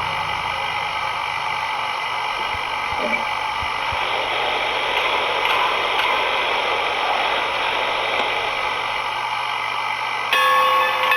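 Sound of an HO scale model steam locomotive: a steady steam hiss with faint clicks as it stands, then a steam whistle blows near the end, several tones at once.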